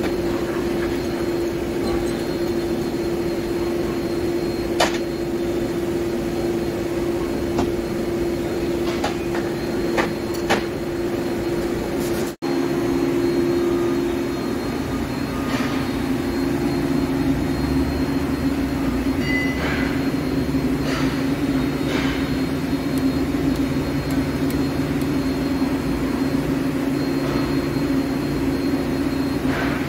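Heavy CNC lathe, a Hankook PROTEC-9NC, running while turning a steel shaft: a steady machine hum with scattered sharp ticks. About twelve seconds in the sound cuts out for an instant and the hum then runs lower in pitch.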